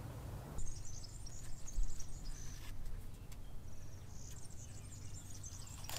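Small birds chirping repeatedly in high, quick twitters, with a few faint soft clicks as a knife peels the skin off a weeping bolete cap.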